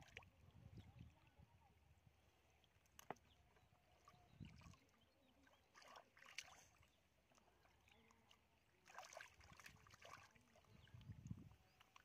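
Faint sloshing and splashing of hands groping through shallow muddy water, in short bursts, with a single sharp click about three seconds in.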